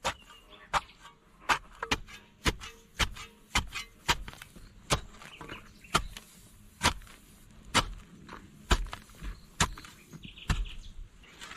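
Repeated sharp strikes of a hand tool, about fifteen at an uneven pace of roughly one to two a second.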